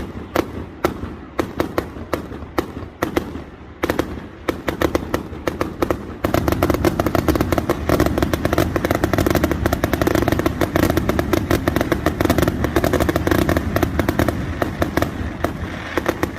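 Fireworks finale: a rapid barrage of bangs and crackles. It is scattered at first, turns into a loud, dense, almost continuous volley about six seconds in, and eases a little near the end.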